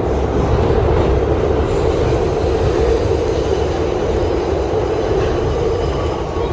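New York City subway train running on the track through the station: a steady, loud rumble of wheels and running gear.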